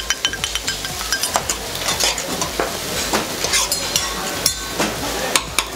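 Steak and bean sprouts sizzling on a hot teppanyaki flat-top griddle, with irregular sharp clicks and clinks of metal utensils against the steel.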